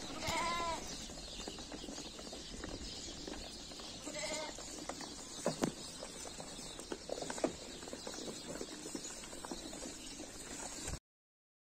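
Barki sheep bleating twice, once at the start and again about four seconds in, over a low rustle with a few sharp knocks; the sound cuts off near the end.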